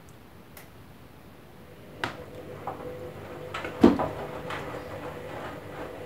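Candy front-loading washing machine drum starting to turn during a wash cycle: a click about two seconds in, then a steady motor hum as the down jacket tumbles and sloshes in the water, with irregular knocks and a heavy thud just before four seconds in.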